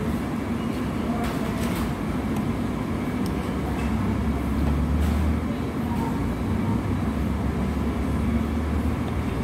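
Steady low rumble of restaurant background noise, swelling a little about four seconds in, with a few light clicks.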